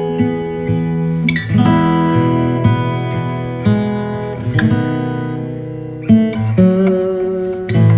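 Background music: acoustic guitar chords strummed, a new chord struck about every second.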